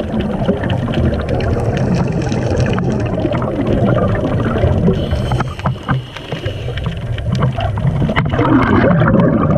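Underwater noise picked up through a camera housing: scuba exhalation bubbles rumbling and gurgling, with scattered short clicks. The gurgling grows louder near the end.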